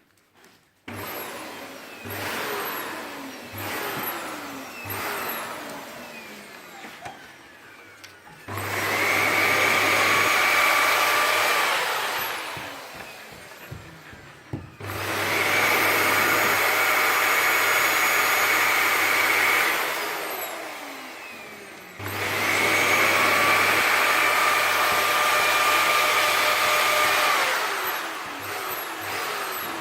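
Vacuum cleaner running, swelling loud three times for several seconds each with a steady whine and dropping back quieter in between.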